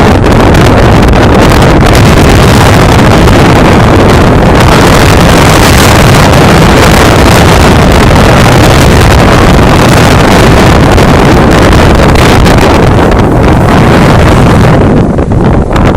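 Strong blizzard wind blowing straight onto the microphone: a loud, steady wind noise with a heavy low rumble, easing slightly near the end.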